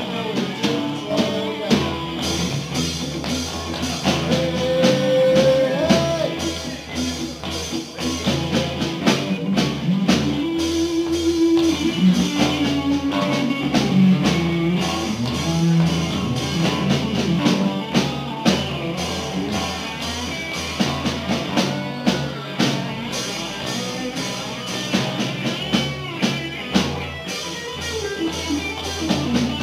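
Live rock band playing electric guitars and a drum kit.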